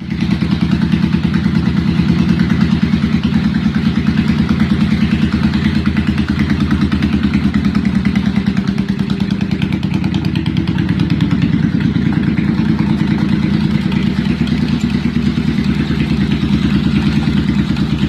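Honda Shadow's V-twin engine idling steadily with an even, rapid firing beat.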